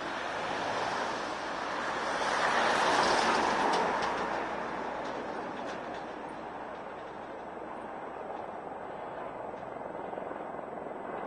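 Jet noise from a low-flying Boeing 747-300's four engines on approach: a broad, steady rush that swells to its loudest about three seconds in and then eases off.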